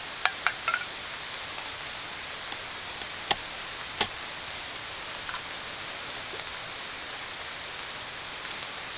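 Steady hiss of outdoor background noise with a few sharp clicks: three close together in the first second, then one about three seconds in and another about four seconds in.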